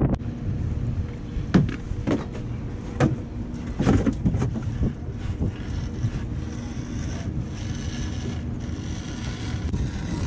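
Several sharp knocks and clunks on an aluminum boat's hull and rail as crab-trap line and gear are handled, mostly in the first half, over a low steady rumble.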